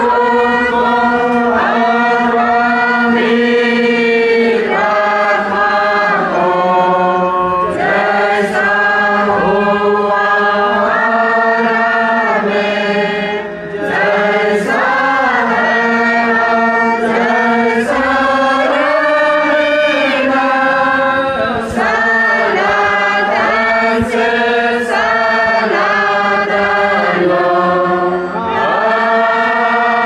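A congregation singing a hymn together: many voices on a slow melody of held notes, continuing without a break.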